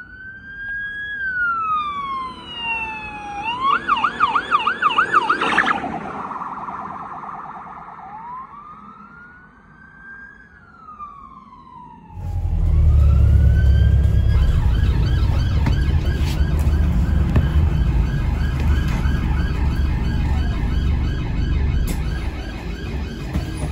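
UK police car sirens: a slow rising and falling wail switches to a fast yelp, ends in a short harsh bullhorn blast, then returns to the wail. After a sudden change, a second police car's siren wails and then yelps continuously over a heavy low rumble of traffic.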